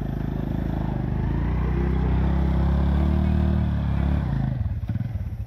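Small automatic scooter's engine revving under load as it rides out of muddy flood water, its pitch and loudness rising until it eases off about four seconds in.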